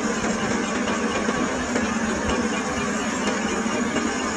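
Metal lathe running steadily while a boring bar cuts inside the bore of a spinning steel part: a constant machine hum with an even hiss of cutting.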